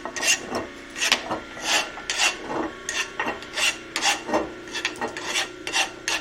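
A file rasping across metal in short repeated strokes, about two to three a second, deburring the sharp edges of a freshly machined part. A faint steady hum runs underneath.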